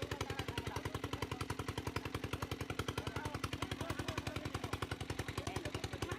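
The engine of a dewatering water pump running steadily, with a rapid, even chugging of about a dozen beats a second.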